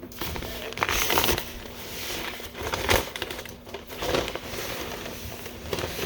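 Wrapping on a large grinder sandwich crinkling and rustling as it is unwrapped, louder about a second in and again near three seconds.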